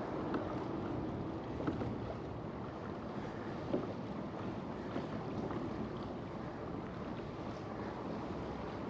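Steady wind on the microphone and water lapping around a kayak on open water, with a couple of faint knocks.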